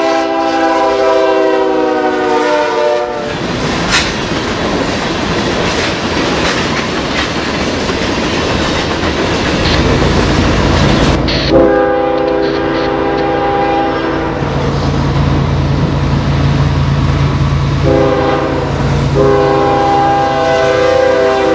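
Diesel locomotive's multi-chime air horn sounding long blasts, with the rumble and clatter of a passing train between them. The horn stops about three seconds in, sounds again about twelve seconds in, then gives a short blast and a long one near the end, over a low steady engine drone.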